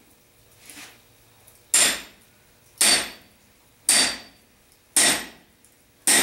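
Blacksmith's hammer forging a red-hot iron bar on an anvil: one light tap, then five heavy blows about a second apart, each ringing briefly.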